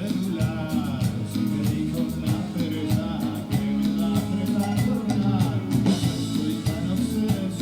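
Live rock band playing amplified through a PA at a soundcheck: guitar, bass and drums with a singer's voice over them.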